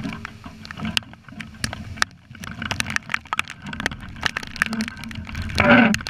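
Heavy rain and wind-driven drops ticking irregularly against the camera's housing over a steady low rumble of wind on the microphone, with a brief louder burst near the end.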